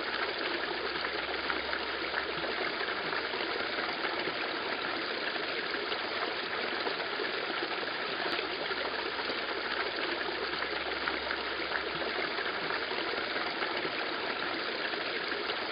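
Water falling in a thin stream from a rock spout into a stone basin of a boulder garden fountain, a steady trickling splash.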